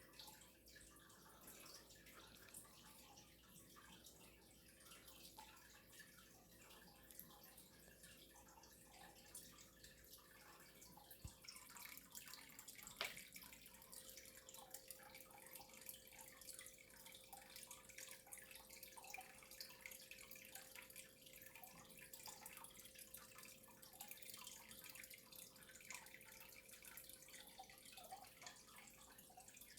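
Near silence: faint room tone with scattered small ticks, a faint steady hum, and one sharper click about 13 seconds in.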